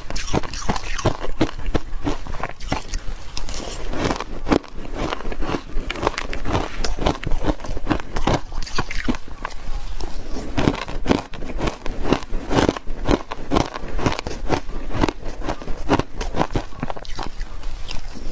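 Close-up crunching of soft shaved ice dusted with powder being bitten and chewed, a dense run of small crisp crackles with hardly a pause.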